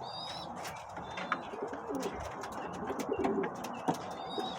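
Domestic pigeons cooing in a loft, with low wavering coos throughout and a few short high chirps near the start and end.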